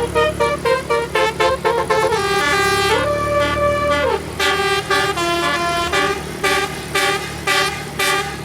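Bus telolet horn playing a melody: quick stepped notes, then a note that slides up about three seconds in, holds for about a second and slides back down, followed by more short pulsed notes. A low vehicle rumble runs underneath.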